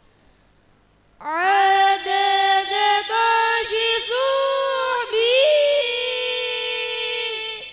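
A girl's solo voice singing one long, ornamented line through a microphone, with no instruments. It starts about a second in, moves through several held notes, and fades near the end.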